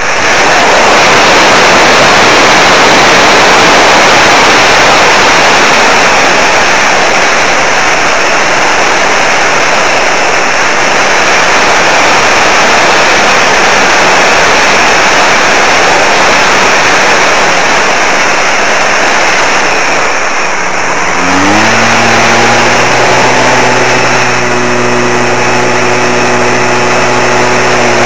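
Electric RC model aircraft's motor and propeller running under heavy wind rush. About 21 seconds in, a steady hum with overtones rises in pitch, then holds.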